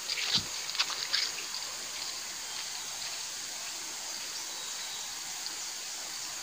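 River water running in a steady, even rush, with a few short knocks and clicks in the first second or so.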